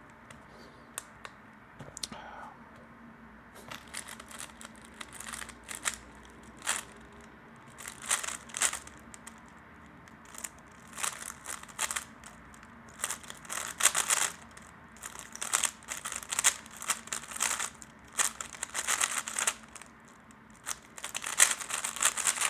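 A 3x3 speedcube being turned rapidly in a timed solve: quick flurries of plastic clicking and clattering as the layers turn, starting about four seconds in after a quiet stretch.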